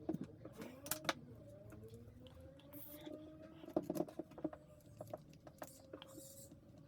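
Light, scattered clicks and taps of a screwdriver and small parts being handled while a screw is redone in a cordless impact driver's plastic housing.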